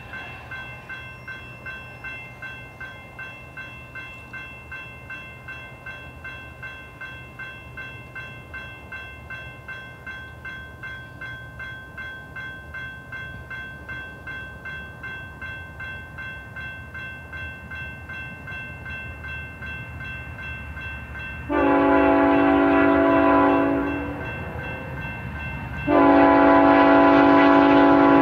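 Grade-crossing bell ringing steadily at about two strokes a second as a freight train approaches. About three-quarters of the way in, the lead GE ET44C4 locomotive's air horn sounds a long blast of about two and a half seconds, and a second long blast starts near the end: the horn signal for the crossing.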